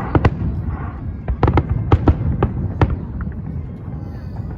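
Fireworks display: a rapid, irregular string of sharp bangs and crackles over a continuous low rumble.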